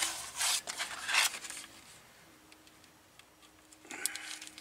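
Plastic meat packaging crinkling and scraping as a pack of beef short ribs is cut open with a blade: several rustling scrapes in the first second and a half, then a pause, then another rustle about four seconds in.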